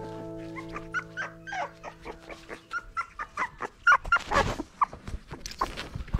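West Highland White Terrier puppies yipping and whimpering in many short, quick cries, with scuffling clicks among them. Background music fades out over the first half.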